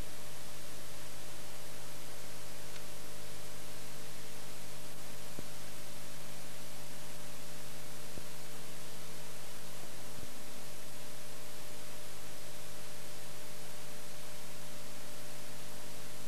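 Steady hiss with a low mains hum and a few faint steady tones under it, unchanging throughout: the noise floor of an old analog videotape's blank audio track.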